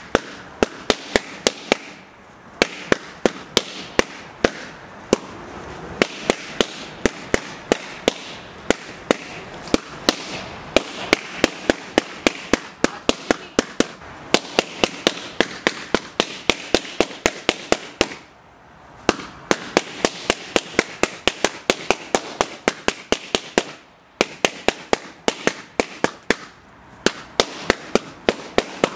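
Latex balloons being popped one after another with knives, a rapid string of sharp bangs several a second with a few short pauses.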